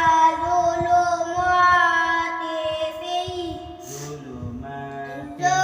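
Melodic Quran recitation by a single high voice: a long drawn-out note held for about four seconds, a quick breath about four seconds in, then the voice goes on at a lower pitch and a new phrase starts loudly near the end.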